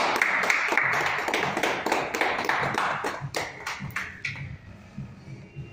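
A small group clapping, a dense patter of hand claps that thins out and stops about four seconds in. Faint background music with a steady low beat is left underneath.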